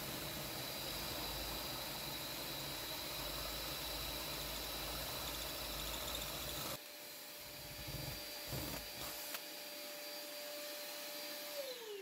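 Cordless drill with a half-inch masonry bit boring through G-10 fiberglass laminate while a shop vacuum runs beside the hole to pick up the dust. The drilling stops a little past halfway. Near the end the vacuum motor's whine falls in pitch as it winds down.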